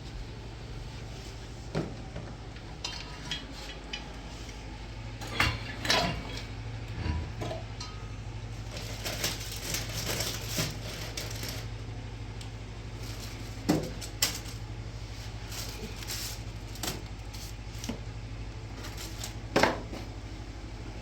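Scattered clinks and knocks of hard objects being handled, with a busier scraping, clattering stretch about nine seconds in, over a steady low hum.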